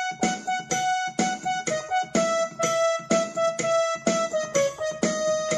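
Instrumental background music on a piano-like keyboard: a slow held melody over a steady rhythm of repeated struck chords.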